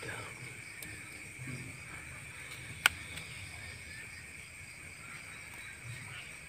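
Night insects, likely crickets, trilling steadily and high-pitched, with one sharp click about three seconds in.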